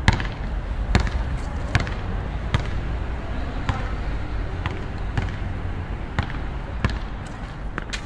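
Basketball bouncing on an outdoor court: sharp, separate thuds at an uneven pace, roughly one a second, over a steady low city rumble.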